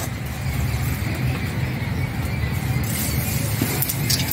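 Hot oil sizzling in a wok with nigella seeds just added, a steady hiss over a constant low rumble.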